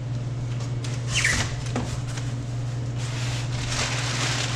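Cardboard box packaging being handled and opened, with a short squeak about a second in and a rustle of packing material that grows from about three seconds on, over a steady low hum.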